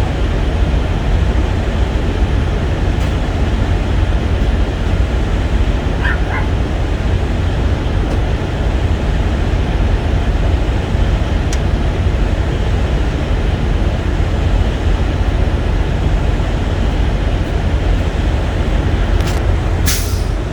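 A steady, loud low rumble with no clear rhythm, with a few faint short high-pitched sounds about six seconds in.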